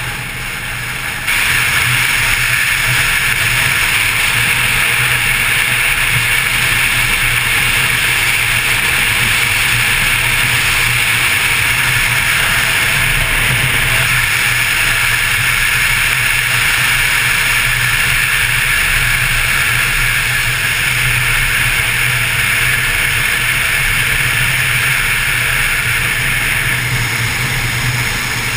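Motorcycle engine running at a steady road speed, with wind rushing over an on-bike camera; the sound steps up in loudness about a second in.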